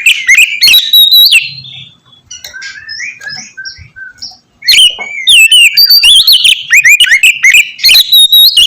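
Oriental magpie-robin (kacer) singing a loud, fast, varied song of rising and falling whistles and sharp chattering notes. About a second and a half in it drops to softer, scattered notes, then bursts back into full song after about three seconds.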